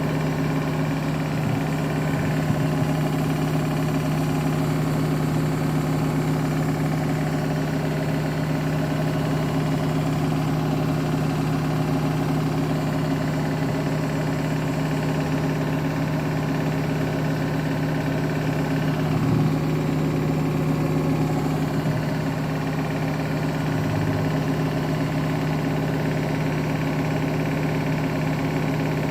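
Beko WTK104121W washing machine spinning with an unbalanced load: a loud, steady low hum from the drum and motor, with a few brief knocks, the clearest about two-thirds of the way through.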